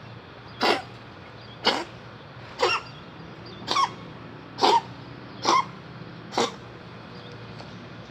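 Domestic cat coughing from a hairball: seven short coughs about a second apart, stopping about six and a half seconds in.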